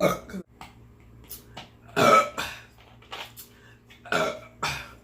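A person burping several times: one burp right at the start, the loudest about two seconds in, and two shorter ones close together near the end.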